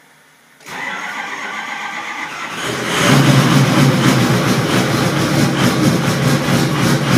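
Ford 6.0 Power Stroke V8 diesel cold-starting with two glow plugs out: the starter cranks for about two seconds, then the engine catches and keeps running, louder.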